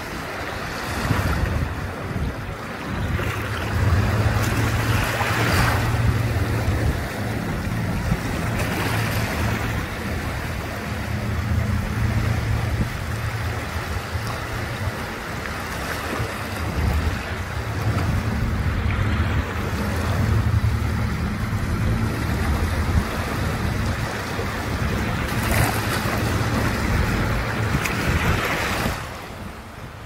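Small waves washing in and out on a shell-strewn beach, swelling and easing every few seconds, over a steady low rumble.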